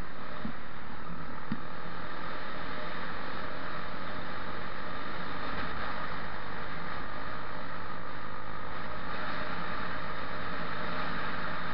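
Steady wind and travel noise buffeting a vehicle-mounted camera's microphone while riding along an asphalt path, with a low steady hum underneath; the rushing grows a little louder near the end.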